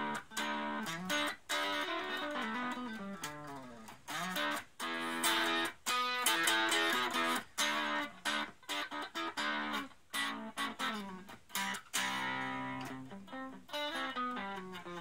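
Electric guitar played through a Raizin '60s Vintage Tweed' effect pedal: picked notes and chords in short phrases with brief pauses between them.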